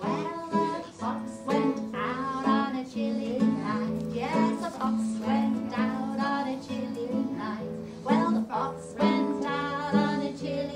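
Music: an acoustic guitar playing with voices singing along.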